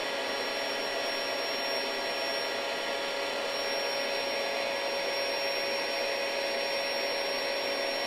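Built-in electric pump of a SoundAsleep Dream Series queen air mattress running steadily in deflate mode, drawing the air out of the mattress: a constant whir with a fixed high whine.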